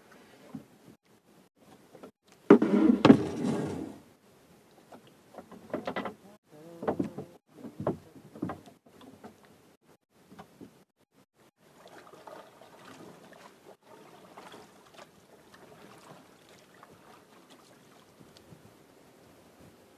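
Water splashing against a small outrigger fishing boat, with knocks on the hull as a fishing line is hauled in by hand. The loudest splashing comes about two and a half seconds in, followed by several shorter splashes and then faint lapping.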